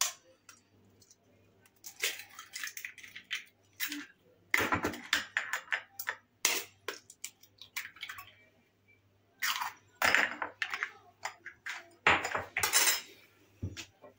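Eggs being cracked open with a metal fork over a glass mixing bowl: clusters of short taps and clinks of the fork against eggshell and glass, with pauses between.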